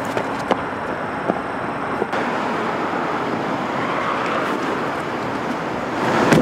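Steady road traffic noise with a few sharp clicks in the first second and a half.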